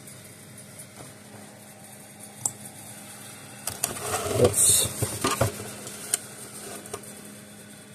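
Handling noise from a Gallagher S10 solar fence charger's plastic housing being turned over and set down on a wooden workbench: a cluster of knocks, scrapes and rattles about four to five and a half seconds in, with a few single clicks before and after as the battery lead and selector knob are handled.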